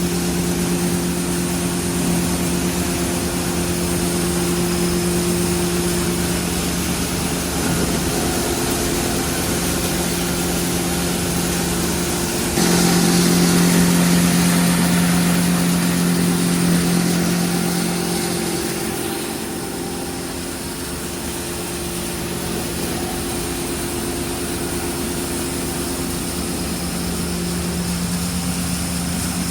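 FRS BK 60 cable granulation plant running, a steady machine hum with a few low fixed tones. From about thirteen seconds in it grows louder and noisier for several seconds, then settles back to the steady hum.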